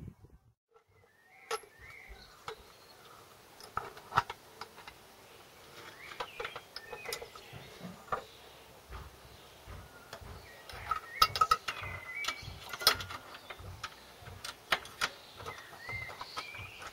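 Scattered clicks and knocks of an air box being handled and seated onto the carburettors, with a quick run of louder knocks in the second half.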